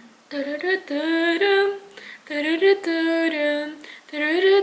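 A woman singing a short melody unaccompanied, in three phrases of held notes that slide between pitches.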